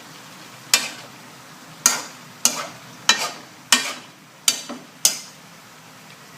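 Spatula scraping and tossing pork and vegetables in a wok while mixing in oyster sauce: seven quick scrapes, about one every half second to a second.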